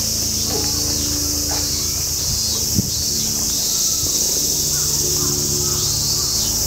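A steady high-pitched drone of cicadas in the trees, with crows cawing now and then. A short sharp knock sounds a little before halfway.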